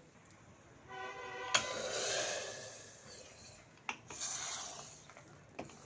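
Metal ladle scraping and stirring inside an aluminium pressure cooker of cooked dal pithi, with sharp metal-on-metal clinks about one and a half, four and five and a half seconds in. A brief steady tone sounds just before the first clink.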